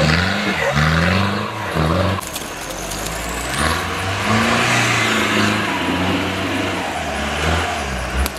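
Off-road jeep engine revving hard: several quick throttle bursts, each rising in pitch, over the first two seconds, then held at high revs with the pitch rising and falling.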